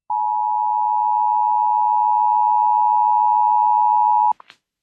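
Emergency Alert System attention signal: the two-tone alarm of 853 and 960 Hz held steady for about four seconds, then cut off abruptly, followed by a couple of faint clicks.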